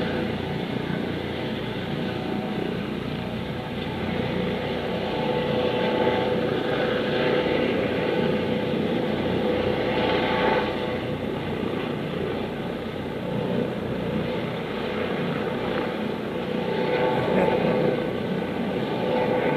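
Helicopter heard from across the water, its turbine and rotor running as a steady drone that swells and eases a little while it sets down on a yacht's helipad.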